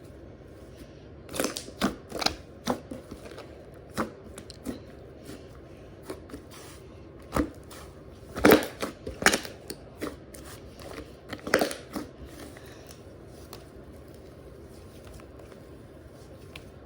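Slime being pressed, poked and stretched by hand, making irregular wet clicks and pops in short clusters with pauses between, the loudest cluster a little past the middle.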